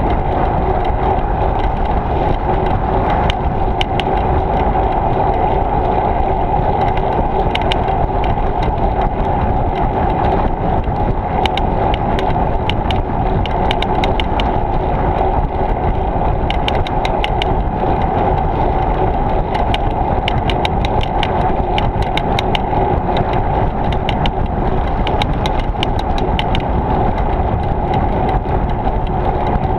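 Steady wind and tyre rolling noise of a bicycle ride picked up by a camera travelling with the bike, with clusters of small sharp clicks coming and going through the middle.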